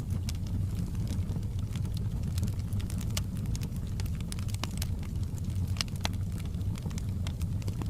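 Wood fire burning in a fireplace: a steady low rumble of the flames with frequent sharp crackles and pops at irregular intervals.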